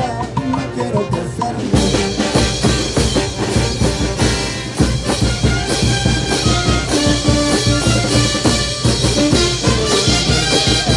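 Live brass band playing a lively dance tune on trumpets, sousaphones, bass drum and cymbals. About two seconds in, the drums and full band come in together and the music gets louder and fuller.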